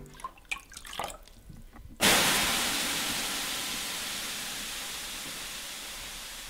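Water thrown onto the hot stones of a wood-fired sauna stove: a few faint clicks, then about two seconds in a sudden loud hiss of steam (löyly) that slowly dies away.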